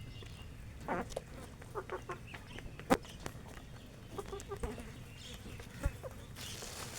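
Chickens clucking in short, scattered calls while feeding. Two sharp taps stand out, the louder one about three seconds in.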